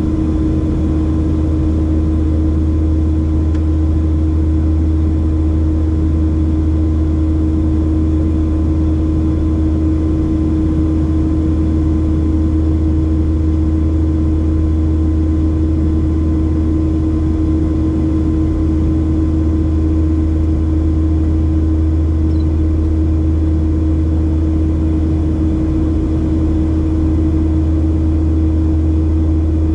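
Steady cabin drone of a Boeing 737-700 in flight, its CFM56-7B turbofans and the airflow heard from inside the cabin: a deep, even rumble with a constant hum above it.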